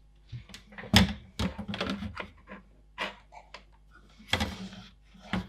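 Handling noises of computer case parts: an irregular series of clicks, knocks and short rattles as pieces are picked up and set down, the loudest knock about a second in.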